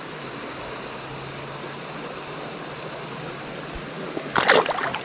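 River water rushing steadily around a wading angler. A short, loud burst of noise comes about four and a half seconds in.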